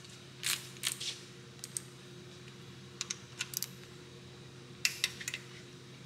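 Scattered small metallic clicks and taps in short groups as a torque wrench and socket are fitted to a rocker arm bolt on an LS3 cylinder head and the bolt is tightened to 22 ft-lb.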